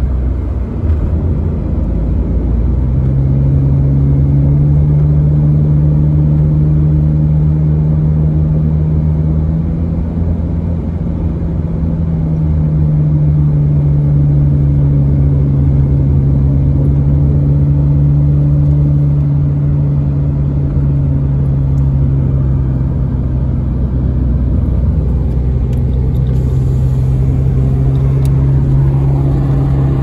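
A car driving at speed: a steady engine drone that rises and falls a little in pitch, over a low rumble of road noise.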